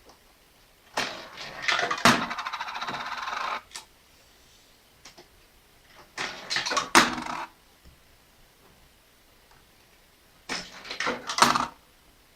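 Coins dropped into a homemade Arduino coin-sorting piggy bank, three times: each coin clatters and clinks down through the sorter. The first is followed by a steady buzz lasting about a second and a half.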